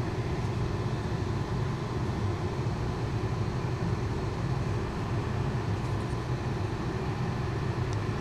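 Steady low background hum, like an air conditioner or other running machine, with a faint small tick near the end.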